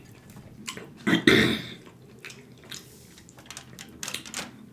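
Close-up eating sounds of a person chewing smoked turkey leg: wet mouth clicks and smacks. There is a short voiced sound from the eater about a second in, and a cluster of clicks near the end.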